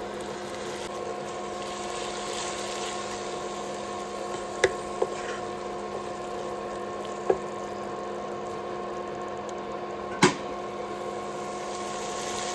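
A plastic spatula stirring stir-fried silkworms and chillies in a frying pan, knocking against the pan four times, the last and loudest about ten seconds in. Under it runs a steady whining hum of several tones.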